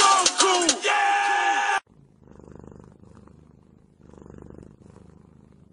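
Loud music cuts off suddenly about two seconds in. A domestic cat then purrs quietly, in slow swells.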